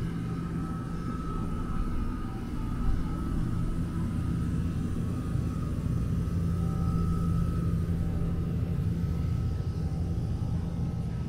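A steady low mechanical rumble with a humming tone and a faint higher whine, growing a little louder in the middle: a large vehicle or machine passing.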